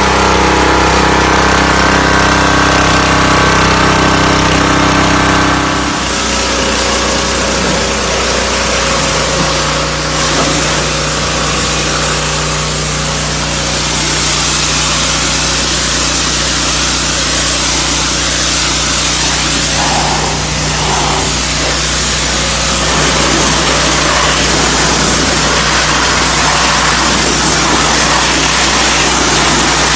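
Gas pressure washer's 212 cc engine running steadily after being pull-started. About six seconds in, a loud hiss of water spraying joins it and the engine note shifts as the pump takes the load.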